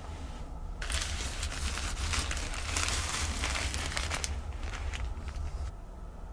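Clear plastic wrapping crinkling and rustling as a packaged face towel is picked up and handled. It is irregular and dense, and stops about a second before the end.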